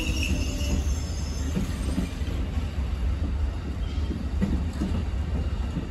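Amtrak stainless-steel passenger cars rolling past on the rails: a steady low rumble with a few faint wheel knocks. A high wheel squeal fades out in the first moment.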